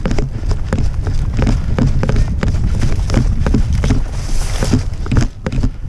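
Running footsteps through dry grass and brush, about three strides a second, with rustling and a steady low rumble on the head-worn camera's microphone.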